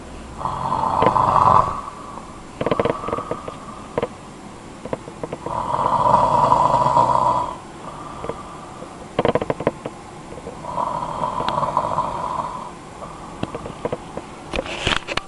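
A man snoring in his sleep: four snores, the longest about two seconds, coming every few seconds, with a few short clicking noises between them.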